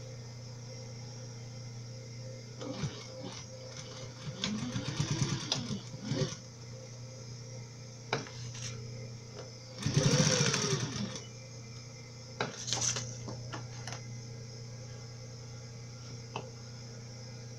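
Sewing machine stitching in short runs: its motor speeds up and slows down twice, about four and ten seconds in, over a steady low hum, with clicks and fabric handling between the runs as the strap end is sewn through fabric and clear plastic.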